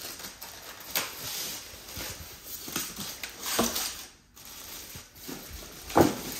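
Handling noise from unpacking: scattered knocks and clicks with light rustling, and a sharper knock about six seconds in.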